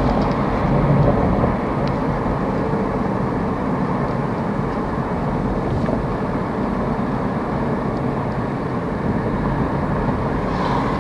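Steady road and engine noise from inside a moving car's cabin, a little louder for a moment about a second in.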